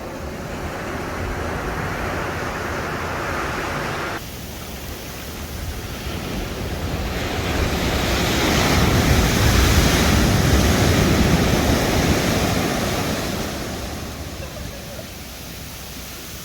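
Ocean surf breaking on a beach: a steady wash of noise that changes abruptly about four seconds in, then a wave swells to a peak around ten seconds in and fades away. Wind rumbles on the microphone underneath.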